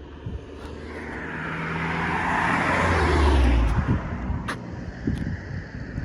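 A motor vehicle passing close by, building up over about three seconds and falling in pitch as it goes past, then fading, followed by two sharp clicks.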